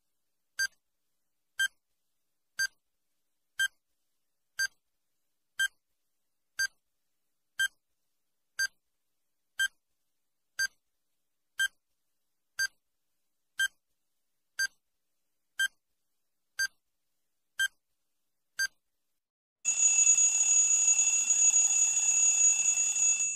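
Countdown timer sound effect: a short electronic beep once a second, nineteen times, then at zero a loud ringing alarm for about three and a half seconds that cuts off suddenly.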